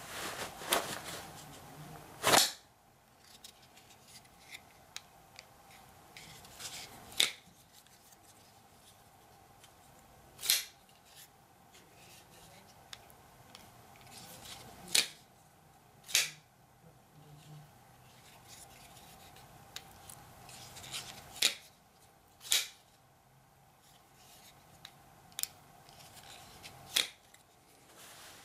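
Cold Steel Talwar XL folding knife being snapped open and shut again and again: about nine sharp metallic clicks of the blade swinging out and locking, and of it being closed, with faint rustling of clothing between.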